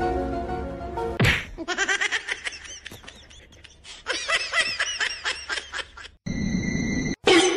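Added soundtrack: a short musical phrase, then a rising swoosh and runs of rapid high-pitched snickering laughter sound effects. About a second before the end a steady high electronic tone sounds over a low hum.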